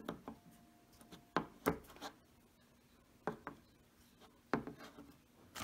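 Plastic paint jars with screw-top plastic lids being handled on a wooden tabletop: a handful of separate sharp clicks and knocks with light rubbing between them.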